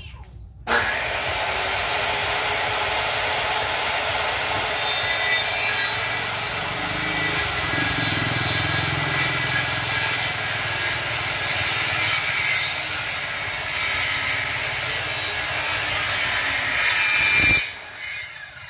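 Handheld electric circular saw ripping a wooden board lengthwise: a steady cutting noise that starts sharply about a second in and runs through one long cut. It is loudest just before it cuts off near the end.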